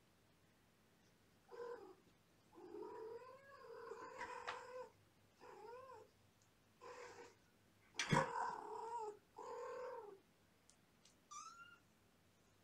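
A cat meowing repeatedly: about seven drawn-out calls, the longest lasting about two seconds, with a single thump about eight seconds in.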